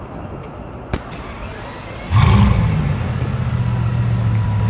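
Bugatti Veyron's quad-turbocharged W16 engine starting about two seconds in: a quick rise in revs, then a steady idle. A single sharp click comes about a second before the start.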